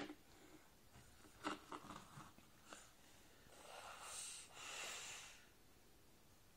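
A baby breathing with a small bowl pressed over his face: two drawn-out, hollow-sounding breaths into the bowl about four and five seconds in, after a few light knocks and clicks as the bowl leaves the tabletop.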